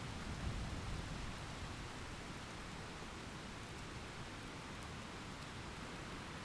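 Steady rain falling, an even soft hiss with a few faint drop ticks.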